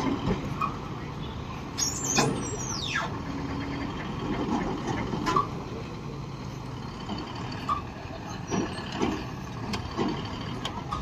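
Heavy diesel engine running steadily, from the hydraulic crane or truck at an overturned-truck recovery, with a high squeal that falls sharply in pitch about two seconds in and a few short knocks.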